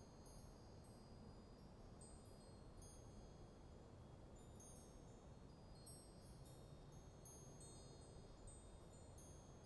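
Wind chimes tinkling faintly and irregularly in a light breeze, many high ringing notes overlapping, over a low steady rush of wind.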